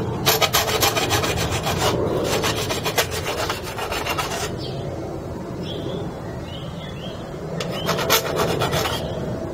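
Hand file rasping back and forth inside a bicycle frame's bottom bracket shell, smoothing burrs left by punching out the bearing cups. A quick run of strokes lasts about four seconds, then a second short run comes near the end.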